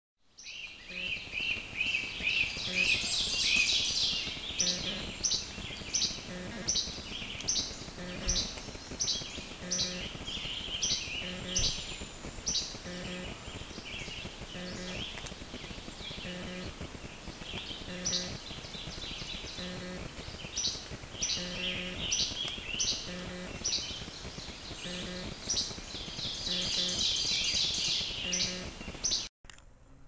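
Woodland birds singing, with a fast warbling song loudest near the start and again near the end, and a short note repeating steadily about twice a second in between.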